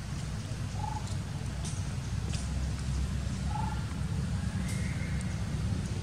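Outdoor ambience with a steady low rumble, and a short animal call repeated three times, about three seconds apart. There are also a few faint high chirps.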